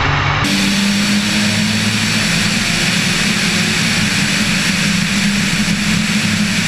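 Car engine running at a steady, high speed under heavy wind and road roar, with an abrupt change in the sound about half a second in.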